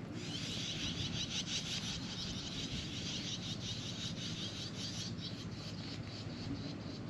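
An insect's shrill, rapidly pulsing buzz that starts abruptly and dies away near the end, over a low steady rumble.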